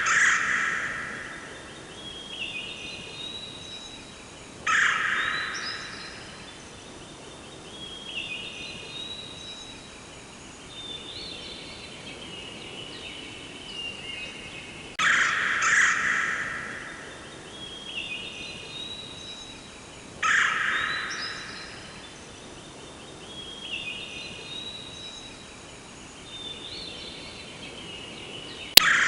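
Forest ambience of birdsong: loud calls of about a second each come every few seconds, with shorter chirping calls between them over a steady background hiss. The sequence repeats about every 15 seconds, as a loop does, and a sharp click sounds near the end.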